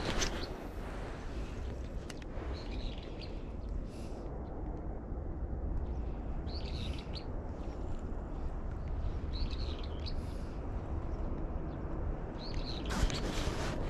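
Short bird calls repeating every few seconds over a steady low rumble, with a brief rush of noise near the end.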